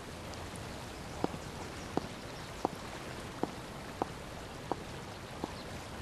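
High-heeled shoes clicking on stone paving: slow, even footsteps, seven sharp steps about two thirds of a second apart.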